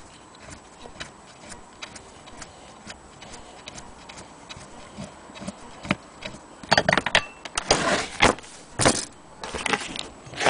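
Light clicking, about two a second, then a run of loud clattering knocks and scrapes as the tipped-up antique Willcox & Gibbs hand-crank sewing machine is handled.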